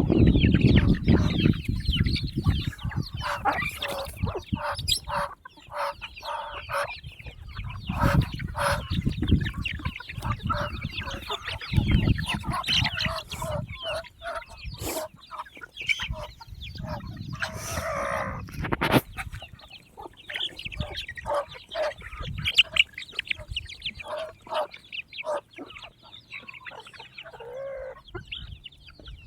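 Poultry calling throughout, a mix of clucks and chirps, with frequent short clicks and knocks among them and a brief rustling burst past the middle.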